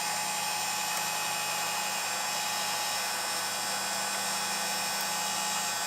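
Electric heat gun running steadily, a constant fan-motor hum with the hiss of blowing air, while it warms up.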